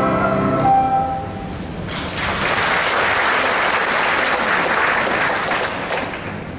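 A children's choir's final held chord, which ends about a second in, followed by a congregation applauding for several seconds.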